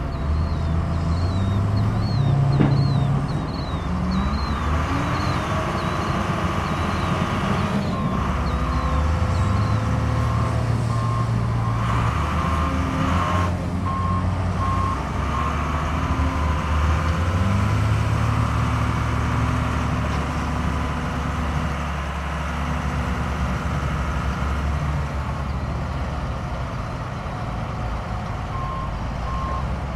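Heavy construction equipment engines running with a low, steady rumble, with a reversing alarm beeping over it for about the first half and again near the end, the sign of a machine backing up.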